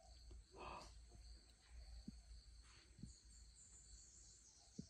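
Near silence with a faint, steady chorus of insects, broken by a few soft knocks.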